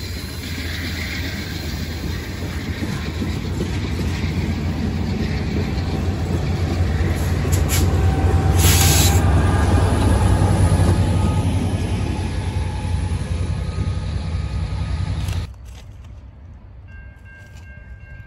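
A passenger train passing close at speed: a steady rumble of steel wheels on rail that builds to its loudest a little past the middle. The train's trailing EMD F59PH diesel locomotive is going by at that point. It cuts off suddenly near the end to a much quieter background.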